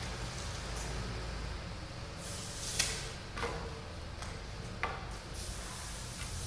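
Poker table cloth rustling as it is smoothed and then lifted and folded back off the table top, with a few sharp clicks and knocks in between.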